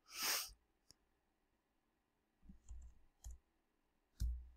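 Faint, scattered computer keyboard key presses and mouse clicks, with a short hiss near the start.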